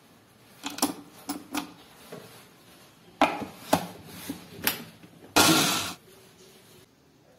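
Stainless-steel mixer-grinder jar holding whole chillies, shallots, garlic and ginger being handled: two bunches of sharp clinks and knocks, then a short loud rush of noise about half a second long near the end.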